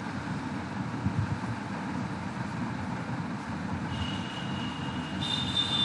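Steady low background rumble with no speech. A thin high tone sounds for about two seconds near the end.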